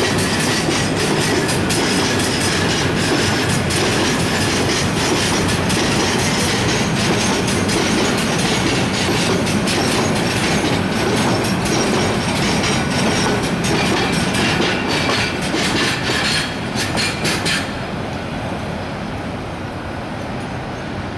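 Freight container train rolling past, its wagon wheels clattering over the rail joints in a quick run of clicks. About three-quarters of the way through the clicking stops and the sound drops to a quieter rumble as the last wagon goes by and moves away.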